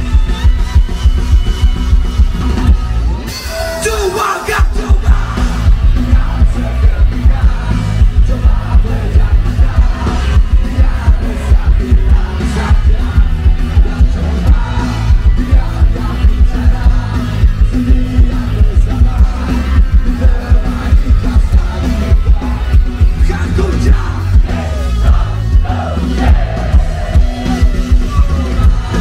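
Live rock band playing loud through the PA: electric guitars, bass, drums and keyboard over a steady heavy beat, with singing. The bass briefly drops out about four seconds in.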